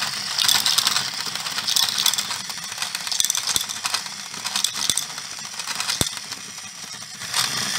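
Hand-cranked plastic mechanism of a Plarail toy coal hopper clicking and rattling as it is turned. Small plastic balls clatter down into a plastic toy wagon below, with a few sharper knocks in the second half.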